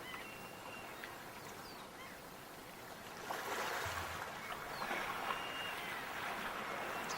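Gentle sea water washing against the shore, swelling about three seconds in, with a few faint, short bird calls above it.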